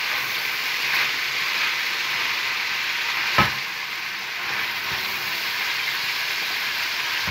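Green beans sizzling in olive oil in a stainless steel pot, stirred with a plastic spatula as they are sautéed to wilt. There is one sharp knock about three and a half seconds in.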